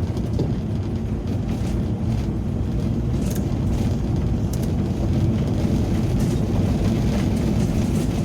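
Ambulance driving along a forest road: a steady low rumble of engine and road noise, with a few faint light ticks.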